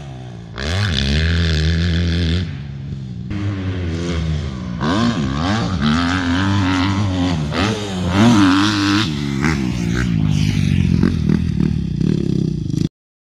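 Yamaha YZ250F four-stroke single-cylinder motocross bike being ridden hard, the engine revving up and falling back again and again as the rider opens and closes the throttle. The sound cuts off suddenly near the end.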